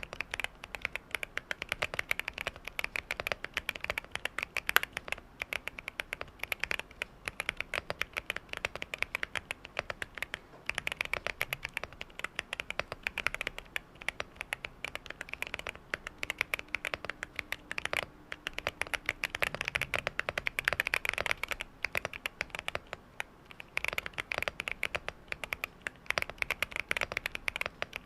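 Typing on a QK65 mechanical keyboard with stock, unlubed Boba U4T tactile switches on a POM plate, at a moderate pace of about 69 words per minute. The keystrokes come in quick runs with short pauses between them.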